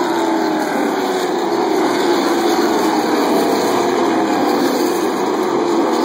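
A pack of Sportsman stock cars racing past at speed: many engines running hard together in a steady, loud drone, their overlapping engine notes shifting in pitch as the cars go by.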